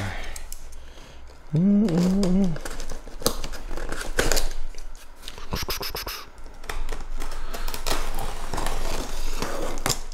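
Packing tape on a cardboard box being scratched at, slit and peeled open: a run of small scratching, crackling and tearing sounds.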